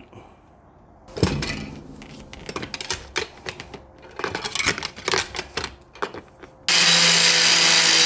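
Knocks and clatter of handling from about a second in, then a corded angle grinder starts suddenly near the end and runs with a loud, steady whine, its disc held against a steel bike lock.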